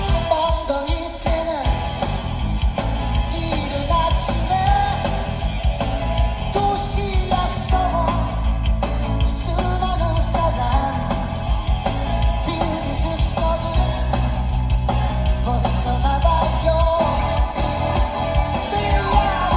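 Background rock-style song with a singing voice, guitar and a steady bass beat.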